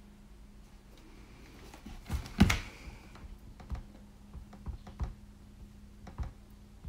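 Keystrokes on a laptop keyboard, a few scattered clicks at a time, after a single louder knock about two and a half seconds in. A faint steady low hum runs underneath.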